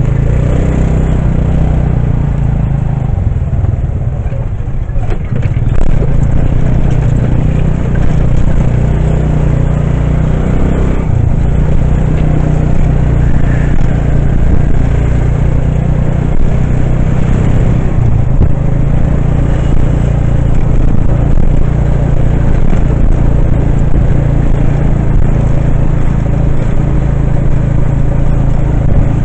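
Motorcycle engine running steadily while riding along a road, with a constant haze of road noise.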